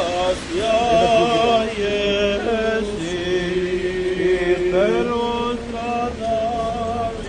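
Voices chanting a Serbian Orthodox liturgical hymn in procession: long held notes with a slight waver, moving between pitches, with a rising slide about five seconds in.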